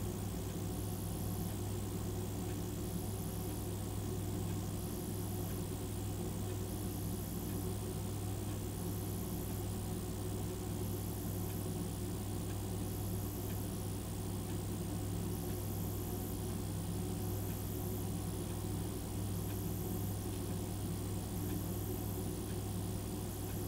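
A steady low hum that does not change, with a faint high hiss that swells and fades about every two seconds.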